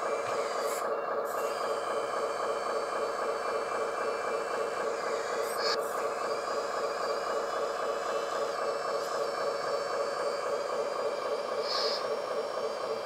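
Hydraulic pump of a LESU radio-controlled roll-on/off truck whining steadily while the tipper cylinder raises the dump body.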